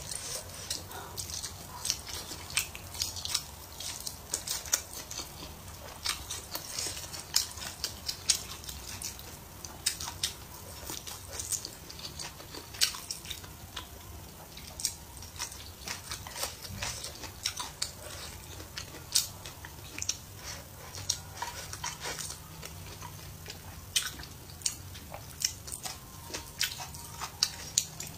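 A person chewing and biting food with the mouth, many irregular wet smacks and sharp clicks.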